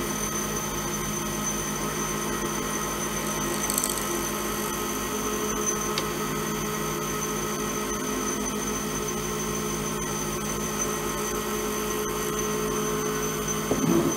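Lathe running with a steady hum while a turning tool takes light cuts on a spinning Alumilite resin pen blank, scraping off cured CA glue and resin as shavings. It is briefly louder near the end.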